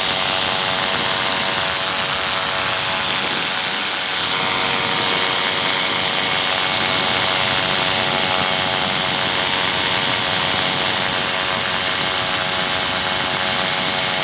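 Paramotor engine and propeller running steadily in flight: a constant drone with a broad hiss over it, holding the same power throughout.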